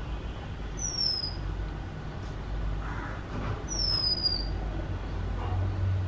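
Female oriental magpie robin giving two high whistled notes, each sliding downward, about three seconds apart, over a steady low rumble.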